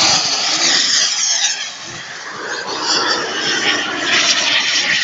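Fast RC model aircraft making a high-speed pass: loud engine and airframe noise at the start that fades about two seconds in as it flies away, then swells again.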